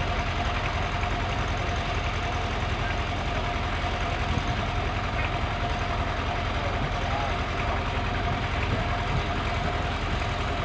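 Tractor engines idling steadily, a low even chugging, with a thin steady tone over it.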